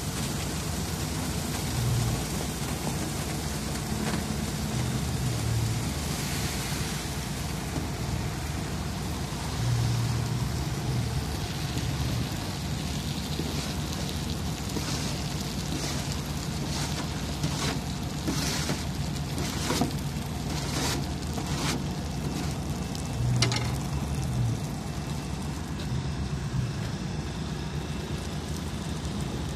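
Asphalt mixer unit running steadily while hot asphalt mix slides and scrapes down a steel chute into a wheelbarrow, with a run of sharp clacks and scrapes in the middle.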